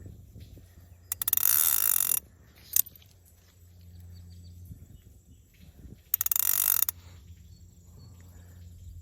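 Fly reel's click-and-pawl ratchet buzzing as fly line is pulled off the reel, in two bursts: about a second long, then a shorter one some five seconds later. A single sharp click comes in between.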